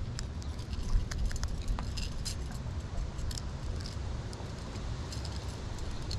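Small metallic clicks and clinks of pliers working a lure's treble hooks free from a smallmouth bass's mouth, over a steady low rumble.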